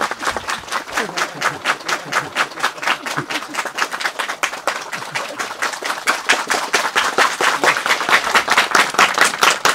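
A crowd clapping together in a quick, steady rhythm, many sharp claps a second.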